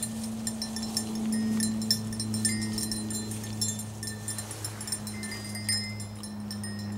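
A small bell on a German shorthaired pointer's collar, tinkling in irregular little pings as the dog moves through tall grass, over a steady low hum.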